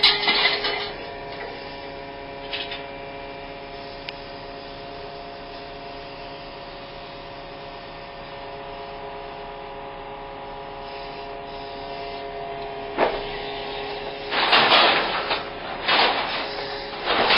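Excavator running with a steady mechanical hum, then about fourteen seconds in several loud bursts of scrap metal clattering and crunching as the attachment works the scrap pile.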